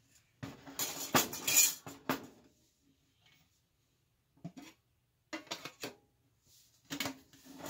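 Metal lid of a one-gallon paint can clanking and scraping against the can's rim as it is handled and pressed into place: a loud clatter of metal knocks over the first couple of seconds, then a few shorter clinks.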